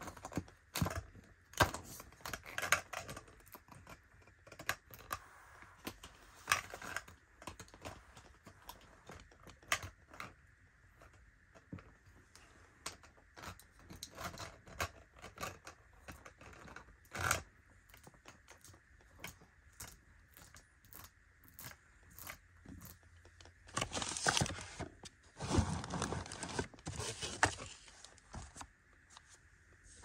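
Makeup packaging (compacts, jars and cases) being handled: scattered sharp clicks and taps as lids and cases are touched, tapped and set down on the table, with a few seconds of denser scratching and rustling near the end.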